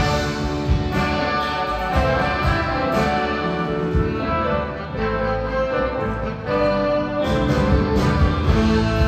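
Rock band and symphony orchestra playing live together: an instrumental passage of held orchestral chords over drums.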